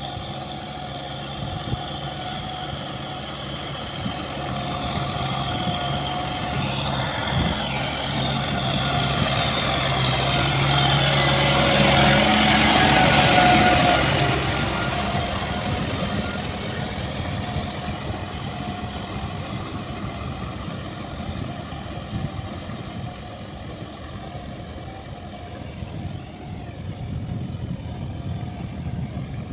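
Kubota farm tractor's diesel engine running steadily under load as it plows through wet paddy mud. It grows louder as the tractor passes close, about halfway through, then fades as it pulls away.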